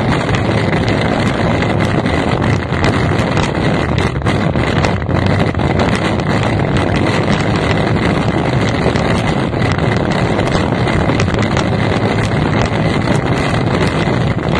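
F1 tunnel-hull race boat's outboard engine running steadily, heard from the cockpit, with heavy wind buffeting on the microphone.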